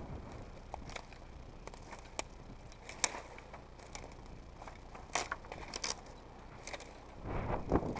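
Footsteps crunching over a mat of dry fallen stems and twigs, with scattered sharp snaps and crackles. The rustling grows louder near the end.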